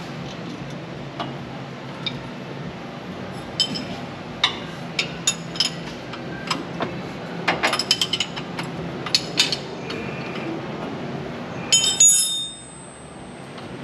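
Metal tools and parts clinking and clicking against each other in an irregular string of sharp metallic taps, ending in a louder ringing metal clank about twelve seconds in.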